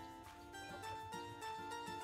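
Soft background music: a gentle plucked-string melody.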